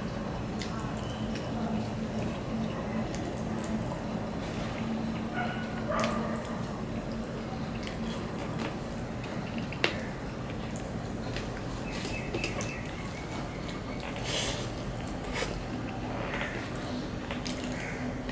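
Wet chewing and mouth sounds of a man eating rice and fish curry by hand, with his fingers squishing and mixing rice against a steel plate. A steady low hum runs underneath, and there is one sharp click about ten seconds in.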